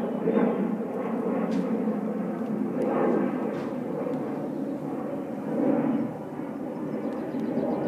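A steady, low engine drone with a few faint clicks over it.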